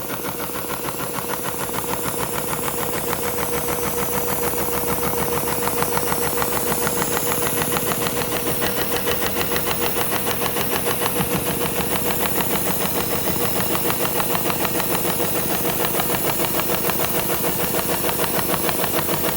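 SEWPRO 273-6040 heavy-duty programmable pattern sewing machine sewing a diamond pattern in heavy thread at about 400 RPM: a fast, steady clatter of needle strokes, with the machine's air cooler running underneath.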